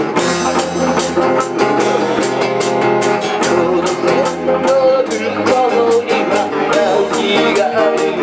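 A small live band playing a pop song: a man singing into a microphone over acoustic guitar, electric bass and electric guitar, with a steady beat.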